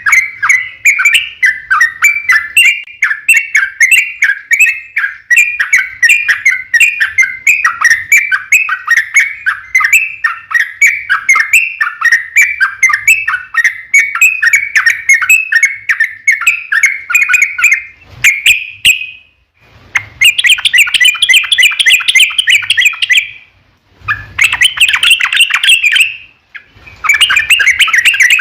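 Yellow-vented bulbul (trucukan) singing a long rapid run of repeated notes, unbroken for about eighteen seconds. After a brief pause come three shorter rapid bursts, a few seconds each.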